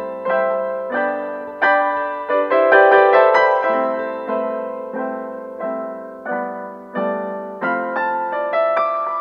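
Background piano music: soft chords struck about every two-thirds of a second, each ringing away, with a quicker run of notes a few seconds in.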